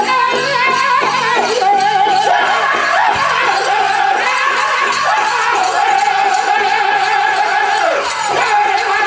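Powwow drum group singing for the dancers: a chorus of high-pitched voices holding and sliding long notes over a steady drumbeat.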